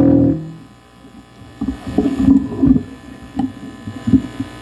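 A live band's loud, sustained distorted chord rings out and cuts off just after the start. It is followed by low, uneven rumbles and knocks from the amplified instruments between songs.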